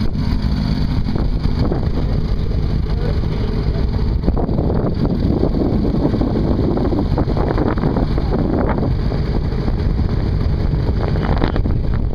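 Snowmobile engine running steadily on the move, with wind rumbling on the microphone, heaviest in the middle.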